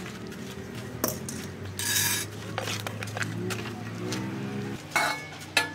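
A metal utensil clinking, knocking and scraping against a large metal pan as fried chicken pieces are stirred into a thick red sauce, with a longer scrape about two seconds in.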